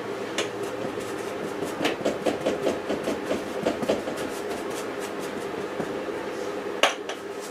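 Quick light taps of a paintbrush dabbing paint onto a stretched canvas, about five a second for a couple of seconds, with a sharper click near the end, over a steady hum.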